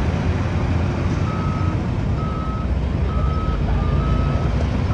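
Heavy construction machine's diesel engine running steadily while its reversing alarm beeps, four evenly spaced beeps about a second apart starting about a second in.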